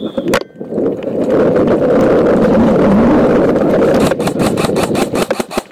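Heavy rushing and rubbing noise on a body-worn camera's microphone as an airsoft player runs, then a fast string of sharp clicks, about ten a second, for a second and a half starting about four seconds in.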